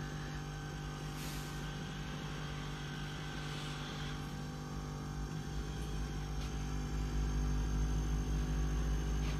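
Wanhao Duplicator 8 resin 3D printer running a print: a steady mechanical hum made of several steady tones, growing louder and deeper from about six seconds in as the Z-axis moves. The machine is very noisy, which its makers put down to the stepper motor driver chip.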